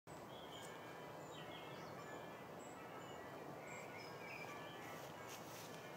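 Faint woodland ambience: a steady low background hiss with scattered distant bird chirps.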